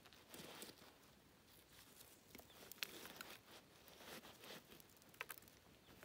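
Faint scattered clicks and soft scuffing, with a couple of sharper ticks about three and five seconds in.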